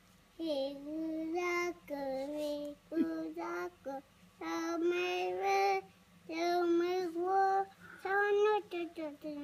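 A toddler singing in a high sing-song voice over his picture book, drawing out each syllable into a held note, in short phrases with brief pauses between them.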